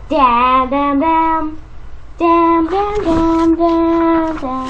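A high voice singing a melody with held notes, in two phrases split by a short pause about a third of the way in.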